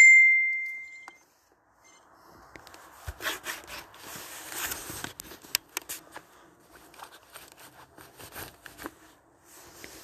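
Rustling, rubbing and scattered clicks of gear being handled close to the phone's microphone while a torch is swapped. A short ringing ding at the very start fades within about a second.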